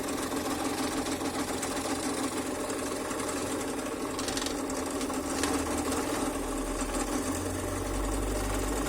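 Scroll saw running, its blade reciprocating steadily as it cuts wood along a pattern. A deeper hum builds from about six seconds in.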